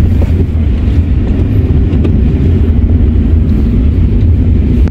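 A car driving along a road, heard from inside the cabin: a steady, deep rumble of engine and tyres.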